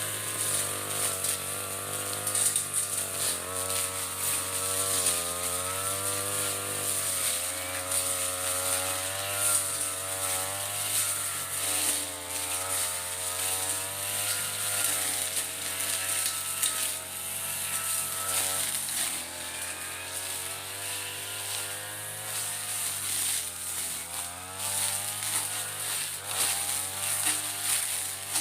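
Mitsubishi TU33 two-stroke brush cutter engine running while cutting ferns, its pitch rising and falling again and again as the load on the blade changes.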